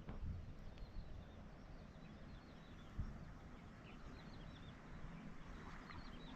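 Faint outdoor ambience: small birds giving short high chirps here and there over a low wind rumble, with a single knock about three seconds in.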